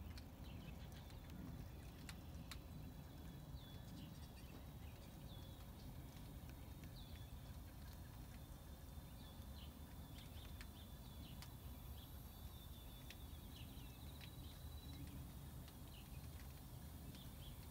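Faint wind rumble on the microphone, with soft high bird chirps repeating every second or two.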